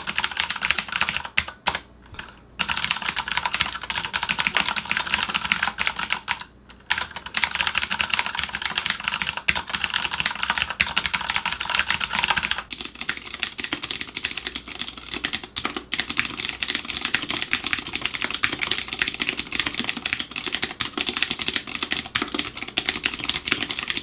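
Continuous fast typing on mechanical keyboards with clicky Cherry MX Blue switches: first on a Corsair K70 LUX, with two brief pauses, then about halfway through on a Leopold FC700R, where the clicks change in character.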